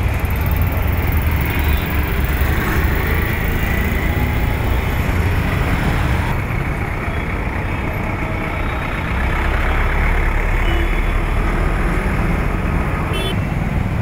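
Steady city road traffic: engines of buses, cars and motorbikes running in a continuous low rumble.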